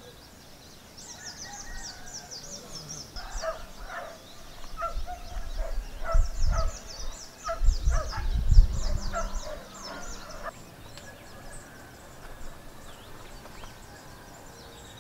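Small birds twittering with quick, high, falling chirps throughout. From about three seconds in, a domestic fowl gives a run of short, repeated calls for some seven seconds, over a low rumble that is loudest in the middle.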